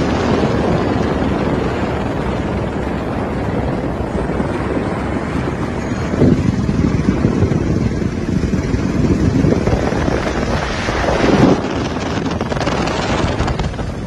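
Helicopter in flight, a steady roar of rotor and engine with wind buffeting the microphone, swelling louder about six seconds in and again about eleven seconds in.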